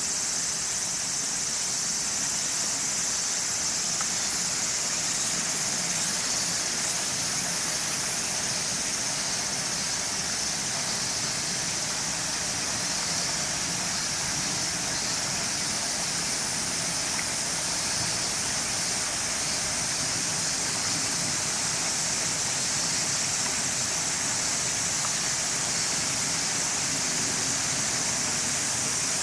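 Steady outdoor ambience: a high, even insect chorus over a constant rushing noise, with no distinct events.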